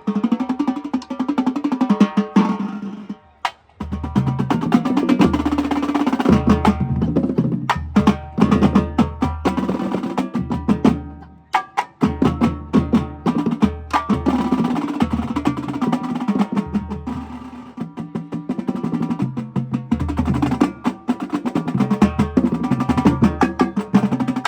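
Marching drumline playing a fast cadence: rapid snare drum strokes and rolls over split bass drums stepping between pitches, with two brief breaks in the playing, about three seconds in and near the middle.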